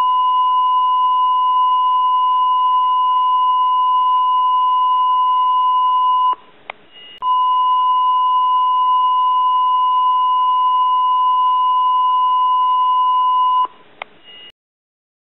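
Cardiac monitor's flatline tone, the continuous alarm of asystole: one steady high beep held for about six seconds, broken off briefly with a click, then held again for about six seconds before cutting off with a second click.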